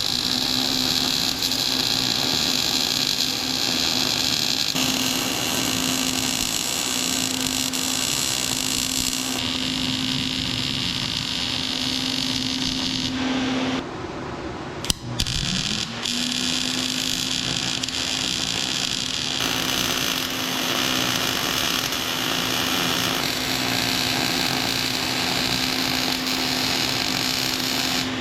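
Electric arc welding on steel: a steady hissing crackle of the arc in two long runs with a short break about halfway, a steady hum rising in as each run starts.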